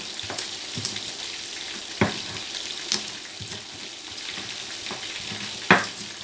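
Stone pestle crushing and grinding chillies and tomato in a stone mortar, with three sharp stone-on-stone knocks, the loudest near the end. Chicken frying in oil sizzles steadily underneath.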